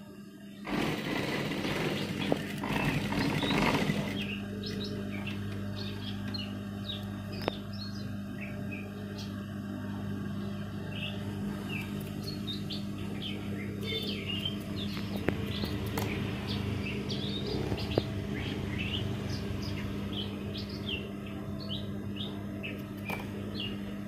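Sewing machine running in a short burst of stitching on a new trouser zipper for about three seconds near the start, then stopping. A steady low hum stays underneath, and small birds chirp repeatedly.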